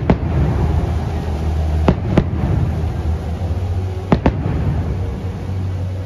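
Aerial firework shells bursting: three pairs of sharp bangs about two seconds apart, over a steady low rumble.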